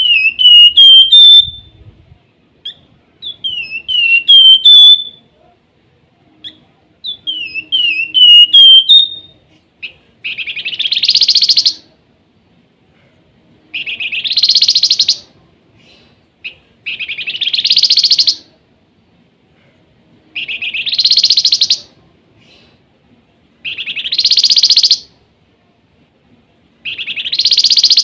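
Flamboyan (Javan fulvetta) calling: three whistled phrases of short sliding notes in the first nine seconds, then six harsh, buzzy chattering bursts, one about every three seconds.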